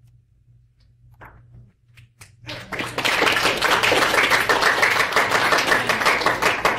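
A room of students breaks into applause about two and a half seconds in, many hands clapping in a dense, steady patter. A low steady room hum lies underneath.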